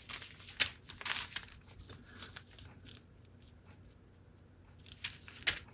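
Small plastic bags of diamond-painting drills crinkling as they are handled, in short rustles about half a second and a second in and again near the end, with a quieter spell in the middle.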